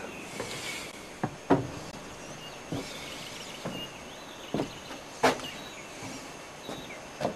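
Footsteps on a house's porch floor: irregular single knocks and thumps as a man climbs the steps and walks across the porch, with two sharper knocks about a second and a half in and about five seconds in.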